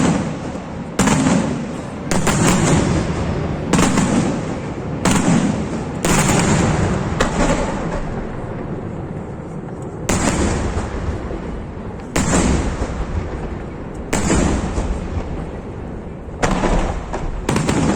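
Display fireworks: aerial shells bursting one after another, a sharp bang every second or two, each followed by a low rumble that dies away. The bursts thin out for a couple of seconds near the middle, then pick up again.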